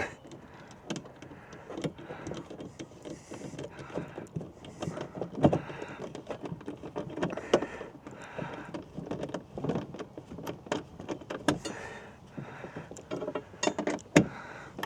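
Irregular clicks, knocks and scraping of a tool working a screw into a TV's metal mounting bracket, with a few sharper knocks about five, seven and fourteen seconds in.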